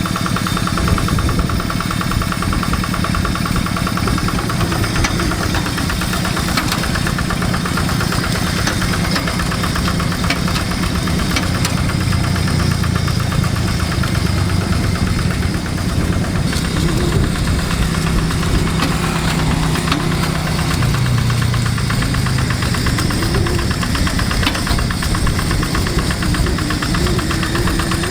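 Hand tractor's diesel engine running steadily under load while plowing a wet rice paddy, its note wavering slightly as the load changes.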